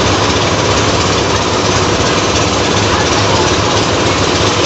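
A steady, loud engine hum with continuous noise over it, unchanging throughout.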